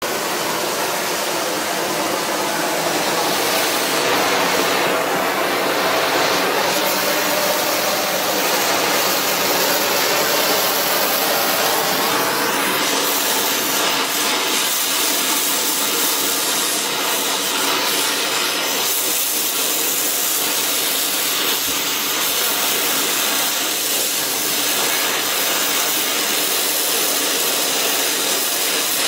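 Brazing torch flame burning with a steady hiss, heating a broken cast iron exhaust manifold glowing hot to take a brass braze.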